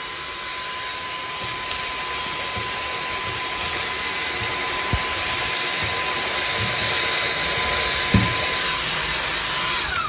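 Cordless vacuum cleaner fitted with a 100,000 RPM brushless DC motor, running at its low speed setting: a steady high-pitched whine over rushing suction air, with a couple of short knocks as debris is sucked up. At the very end the whine falls in pitch as the motor spins down.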